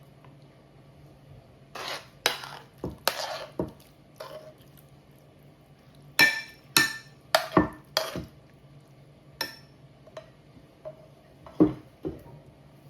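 Kitchen utensils knocking and clinking against dishes and cookware in a dozen or so irregular strokes, the loudest a quick run of ringing clinks midway through.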